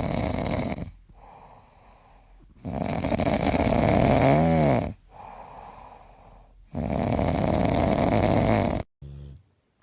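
A dog snoring loudly: three long, rasping in-breaths about every three seconds, with much quieter breaths out between them and a brief whistling rise and fall in the middle snore. Near the end it cuts off suddenly, followed by a short different sound.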